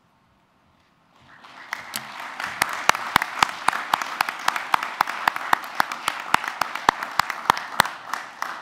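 Audience applause that starts about a second in and swells quickly, with sharp, loud claps close to the microphone, about three a second, standing out over the crowd's clapping.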